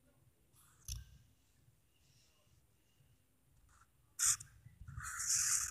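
Marker pen drawing on notebook paper: mostly quiet at first, with a faint tap about a second in and a short sharp rustle just after four seconds, then steady scratching pen strokes on the paper near the end.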